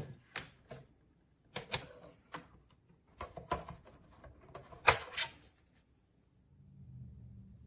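A series of irregular sharp clicks and knocks, the loudest about five seconds in, from the plastic KLIM Boombox E1 being handled. A faint low hum comes in near the end.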